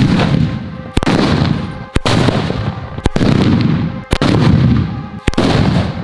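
Firecrackers exploding one after another, about one bang a second, five in all, each followed by a fading echo.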